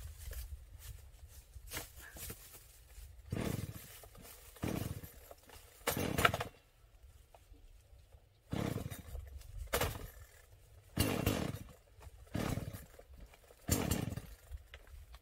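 Chinese-made Dolmar-branded two-stroke chainsaw being pull-started: about eight quick rips of the recoil starter cord, roughly one every second and a half, each turning the engine over briefly without it catching.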